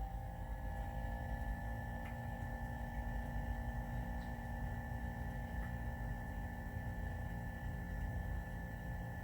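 Alde 3020 heating boiler running with a steady hum and a constant high whine over a low rumble, the unwanted noise it is making.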